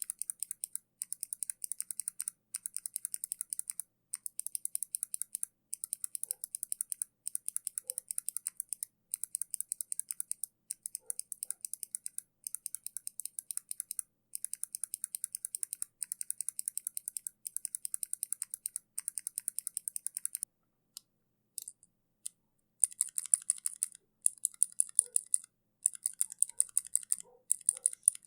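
Fast typing on a mechanical keyboard fitted with Kailh switches, a dense run of key clicks and clacks. The typing nearly stops for about two seconds around the 21-second mark with only a few stray clicks, then resumes noticeably louder.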